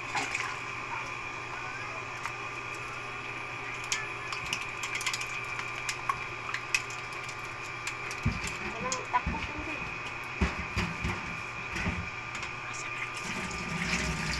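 Live eels squirming in a basin and steel pot, a wet slithering with scattered clicks. From about eight seconds in, dull knocks as the eels thrash against the pot.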